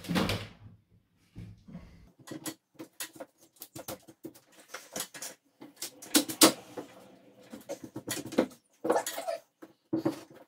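A pry bar working a false ceiling beam loose: irregular scraping, clicking and small cracks of wood and plaster, with a few louder knocks at the start, about six seconds in, and near the end.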